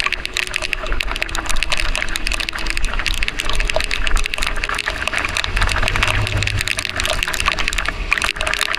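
Heavy rain heard from a moving motorcycle: a dense patter of raindrops hitting the microphone with water noise from the wet road, over a low rumble.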